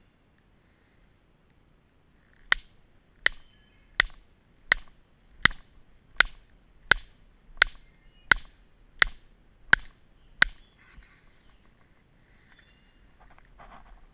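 Chainsaw chain being sharpened with a PFERD CS-X filing guide, which files the cutter and raker together: twelve sharp, even strokes about three-quarters of a second apart.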